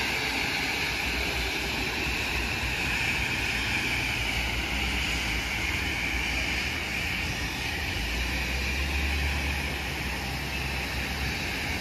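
Airbus A320 airliner's jet engines running at idle as it taxis, a whine over a low rumble.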